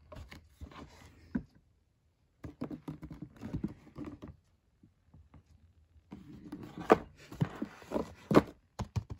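Quiet rustling with sharp clicks and light knocks in three short bursts, the loudest click about seven seconds in.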